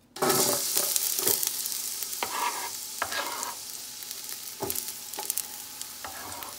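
Chopped red and white onions hitting hot oil in a wide stainless-steel pot: a sizzle that starts suddenly and loudly, then slowly eases, with a few knocks and scrapes of a utensil stirring them in the pot.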